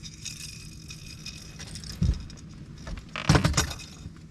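Handling noises on a fishing boat over a steady low motor hum: a single thump about two seconds in, then a louder jangling clatter a second later.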